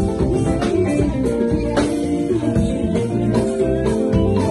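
Live band playing, with guitar out in front over bass and drums.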